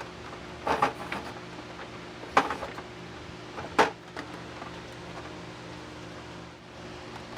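Four knocks and clunks, the last the loudest, as the mini-split's indoor unit is handled and hung on its mounting bracket, over a steady low hum.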